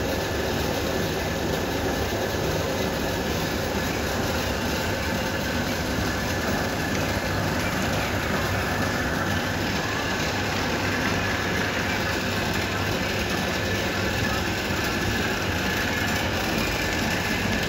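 Commercial 5-litre wet grinder running steadily: the stainless drum turns while the black grinding stones roll through the batter, giving an even rumbling grind over a motor hum.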